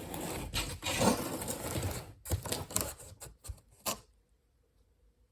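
Cardboard box being handled: rustling and scraping for about two seconds, then a few irregular knocks, stopping about four seconds in.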